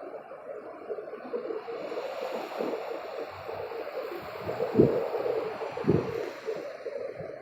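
Hailstorm floodwater rushing and splashing, swelling for a few seconds in the middle, with two dull thumps about five and six seconds in.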